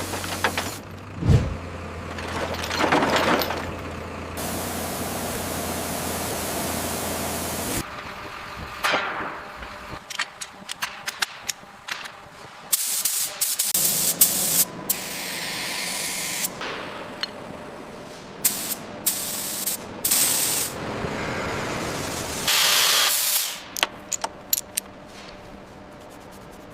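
A quick succession of workshop and machinery sounds. For about eight seconds there is a steady low engine-like hum with a thump early on. After a sudden cut come sharp clicks and knocks of tools on metal, broken by several bursts of spray hiss.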